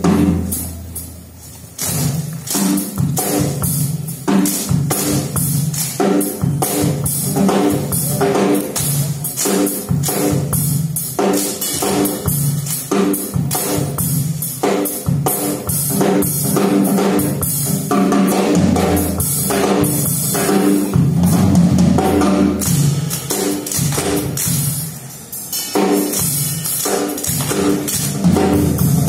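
Drum kit played live with music: a steady run of bass drum and snare hits over sustained pitched notes, easing off briefly twice.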